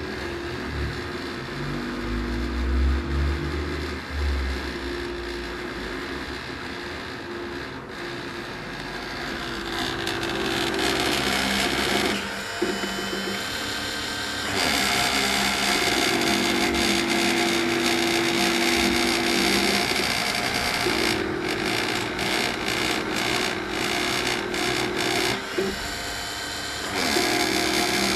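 Small CNC milling machine running: steady motor tones that start, stop and change pitch every few seconds as the axes move, over the continuous high whir of the rotary-tool spindle.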